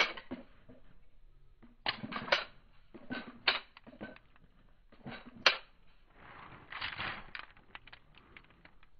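Pistol drawing and reholstering: a series of sharp clicks and knocks of the pistol against a rigid belt holster and in the hand, some in quick pairs, followed a little after the middle by a longer scuffing rustle of clothing and feet on gravel. No shots are fired.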